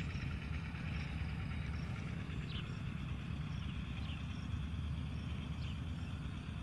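Steady low rumble of wind buffeting the microphone in an open field. Faint short high chirps come through a few times.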